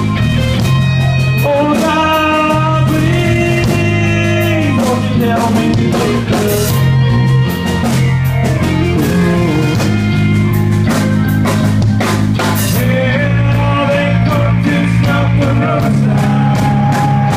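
Rock band playing loudly: electric guitar and drum kit over a steady bass, with a voice singing.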